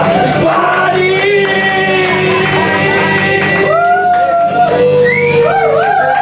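Live band music: held, wavering melody notes over a steady accompaniment, in the middle of a song.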